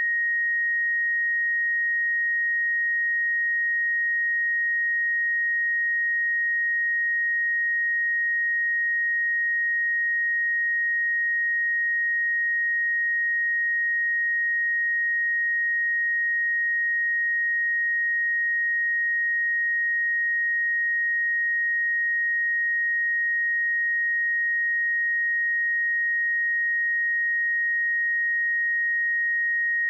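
A pure 1875 Hz sine-wave test tone, one steady high-pitched note held at constant level without change.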